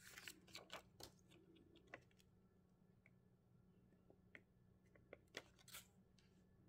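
Faint scattered clicks and taps of small crafting tools and fingers on paper and a cutting mat: a quick cluster in the first two seconds, a few isolated ticks, and two or three more clicks near the end.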